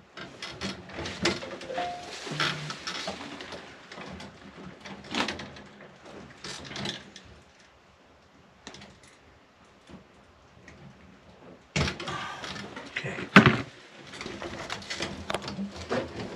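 Clicks, knocks and rustling of hands and pliers working stiff electrical wires and a plastic switch into a wall box. The handling is busy at first, goes quieter for a few seconds in the middle, then resumes, with a sharp click about thirteen seconds in as the loudest sound.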